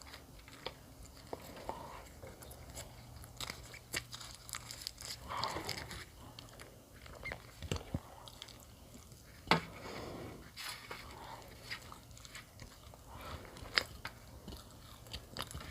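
Close-up chewing and biting of bread, with scattered crisp crunches and mouth clicks.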